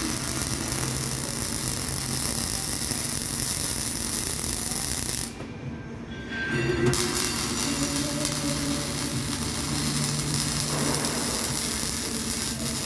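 Electric arc welding: the arc's steady hiss, which breaks off for about a second a little before the middle and then strikes up again.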